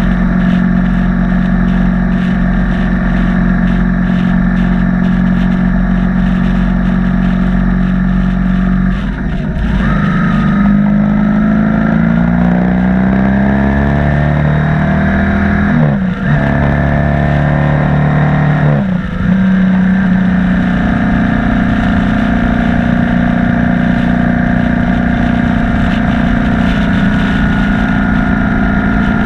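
BMW R1200 boxer-twin motorcycle engine running under way: a steady cruising note, then the pitch climbs and drops through several gear changes around the middle, with brief dips at each shift, before it settles into a steady, slightly higher note.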